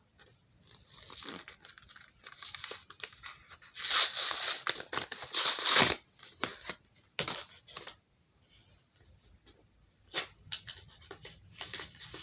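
Plastic packaging being torn open, crinkling, after a hole has been snipped in it with scissors. The loudest, longest tear comes about four seconds in and lasts about two seconds, followed by a few short crackles and rustles.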